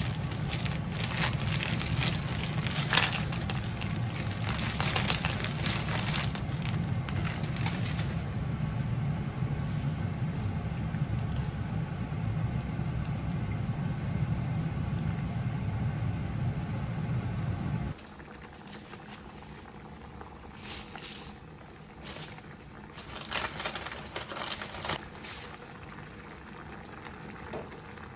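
Tomato soup bubbling at the boil in a frying pan, with tongs stirring through it, over a steady low hum. About two-thirds of the way through the hum cuts off suddenly, and the bubbling goes on quieter with scattered pops and clicks.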